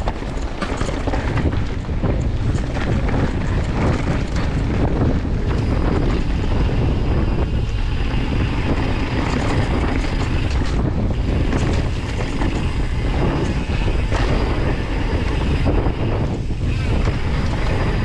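Wind buffeting the microphone of a mountain bike rider's camera on a downhill trail. Under it, tyres run over dirt, and the bike rattles and knocks repeatedly.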